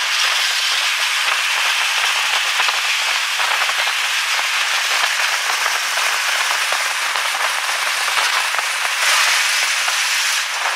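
Dense, crackling rush of wind buffeting the microphone of a camera held out of the window of a moving fire engine.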